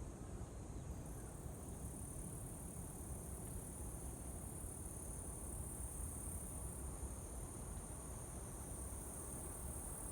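A steady high-pitched drone that comes up about a second in and holds, over a low steady rumble.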